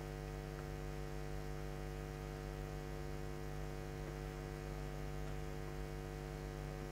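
Steady electrical mains hum with a low buzz of evenly spaced overtones, unchanging in level.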